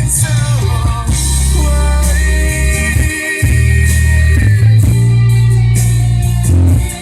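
A Thai rock ballad playing back through a home stereo system under test: electric guitar, drum kit and heavy bass, with a long held note in the middle and a short break about three seconds in.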